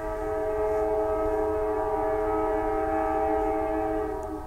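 Diesel locomotive air horn sounding one long blast, a chord of several steady notes, from CSX coal train N319 approaching with locomotive 203 leading; it starts suddenly and drops away after about four seconds.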